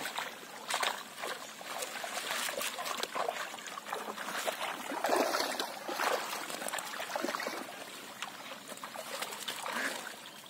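Pond water splashing, trickling and sloshing irregularly as a large wet fishing net is gathered and hauled through shallow water by people wading.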